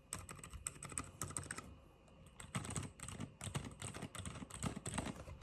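Typing on a modded GMMK Pro mechanical keyboard fitted with Boba U4 and Silent Alpaca V2 silent switches: a quick run of soft keystrokes, a brief pause about two seconds in, then another fast burst of typing.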